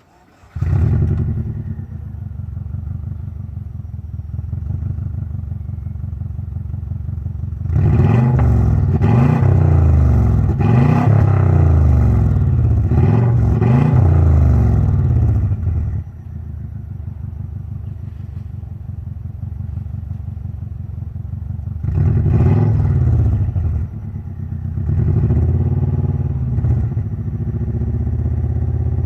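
Exhaust of a Subaru Legacy BE5 Blitzen RSK's twin-turbo flat-four through an Eifel Prova muffler: the engine starts about half a second in and idles, is revved repeatedly for several seconds, drops back to idle, then is revved twice more near the end.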